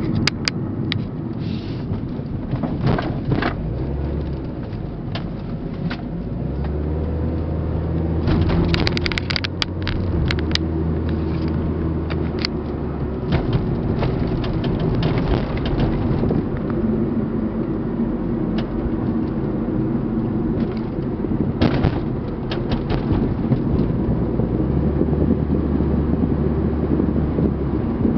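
Eighth-generation Honda Civic driving over uneven road: a steady low tyre rumble, broken again and again by short, sharp high-pitched clicks and knocks that come in clusters over the bumps. The owner suspects the clicks come from an engine mount.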